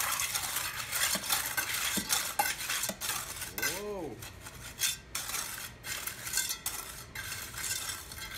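A metal hand trowel scraping and turning fresh, wet concrete against the steel pan of a wheelbarrow in repeated gritty strokes. A brief tone rises and falls once about four seconds in.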